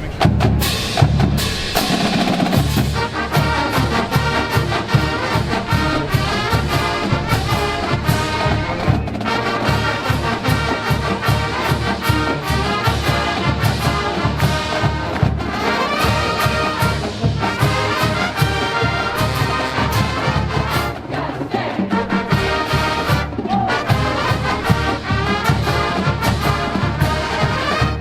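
College marching band playing: brass over a steady, driving drumline beat.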